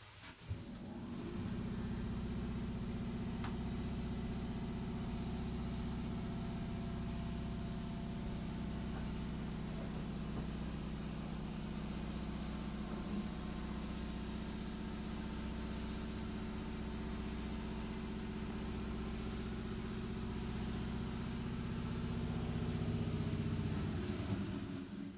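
A small electric motor running with a steady hum. It switches on in the first second and cuts off abruptly near the end.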